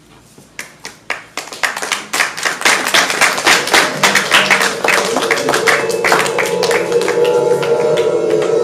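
Stage music cue: a fast, uneven clatter of clicking percussion that builds in loudness over the first few seconds, joined by a sustained low chord about two-thirds of the way through.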